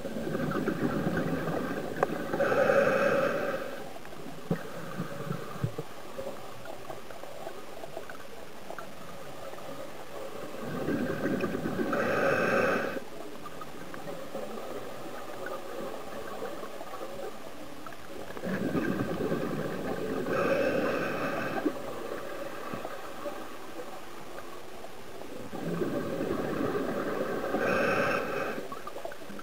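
A scuba diver breathing through an open-circuit regulator underwater: four breaths, one about every seven to eight seconds, each a few seconds of bubbling and hissing with a faint whine, and small clicks in between.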